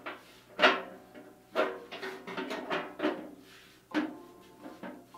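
Metal wheel cover of a Craftex 15-inch bandsaw knocking and clanking against the saw's frame as it is fitted back on: about half a dozen sharp clunks, each with a short metallic ring.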